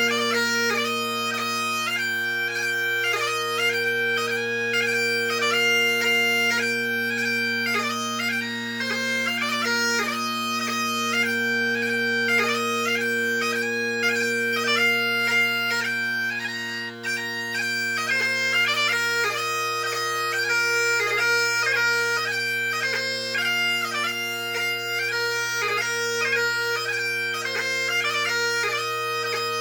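Solo Great Highland bagpipe playing a competition March, Strathspey and Reel: steady drones under a fast, ornamented chanter melody, with a brief dip in the sound about seventeen seconds in.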